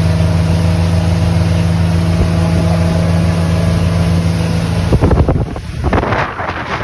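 Motorboat engine running steadily with a low hum. About five seconds in the engine tone gives way to gusty wind buffeting the microphone and rushing water.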